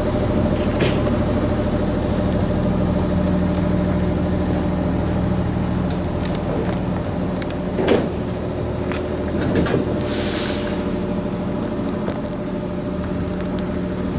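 Aston Martin One-77's 7.3-litre V12 idling steadily, with a few light knocks and a short hiss about ten seconds in.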